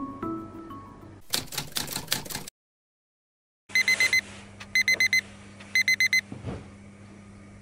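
A mallet-percussion tune ends, then about a second of rapid clicking and a short gap. A digital alarm follows, beeping in three bursts of four quick, high beeps about a second apart, over a low steady hum.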